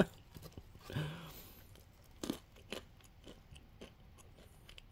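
Seasoned almonds being chewed: a few sharp, separate crunches, fairly quiet.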